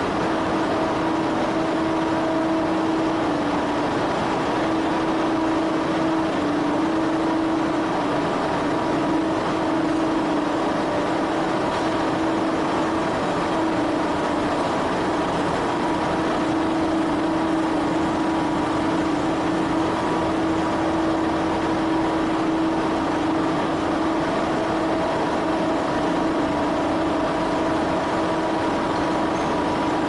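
Industrial vacuum loader running steadily: a loud, unbroken machine drone with a few constant hum tones over it.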